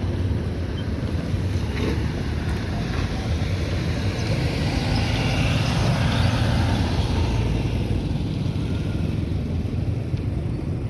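Road traffic and wind rumbling on the microphone, a steady low rush that swells and fades around the middle.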